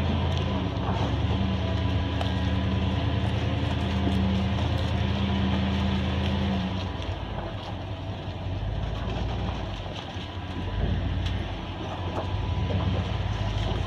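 Chevy K10 pickup's engine running at low speed as the truck crawls off-road over rough ground. The engine note is steady for the first half, then drops about halfway through and turns lower and uneven.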